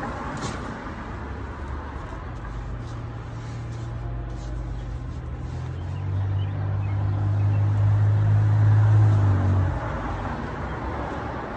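A low, steady engine hum, like a motor vehicle running nearby. It grows louder about six seconds in and cuts off suddenly near the ten-second mark.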